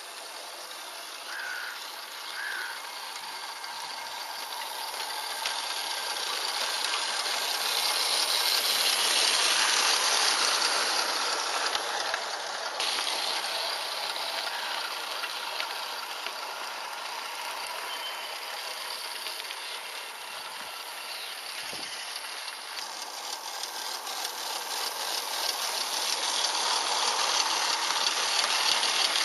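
Regner Willi live-steam garden railway locomotive running, a hiss of steam with a fast ticking beat and wheels clicking on the track. It grows louder as it passes close about ten seconds in and again near the end.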